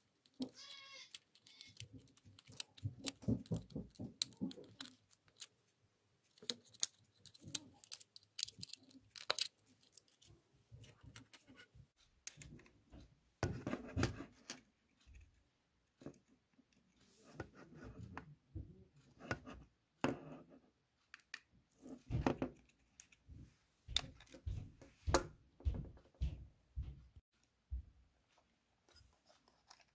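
Irregular plastic clicks, snaps and short scrapes as the plastic housing parts of a Braun Series 5 electric shaver are unhooked and pulled apart by hand.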